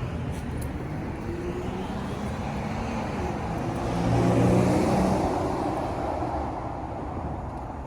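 A motor vehicle passing by: a steady road-vehicle sound that grows louder to a peak about four and a half seconds in, then fades.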